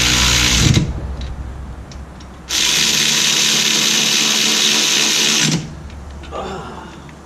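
Cordless power tool running in two bursts, one cutting off about a second in and a longer one of about three seconds starting midway, driving home the mounting bolts of a new rear hub bearing assembly.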